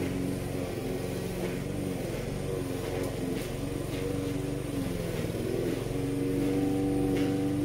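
Petrol walk-behind lawn mower engine running as the mower is pushed across the grass, its pitch wavering and dipping briefly about five seconds in before holding steady.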